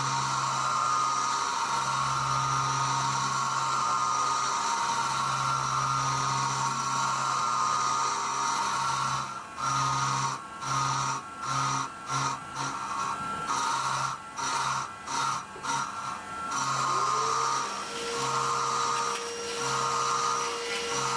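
Syil X7 CNC milling machine dry-cutting cast iron with a roughing end mill during adaptive clearing, a steady mechanical whine. About halfway through, the cutting sound breaks into short on-off spells as the tool moves in and out of the cut, and near the end a new steady tone glides up and holds.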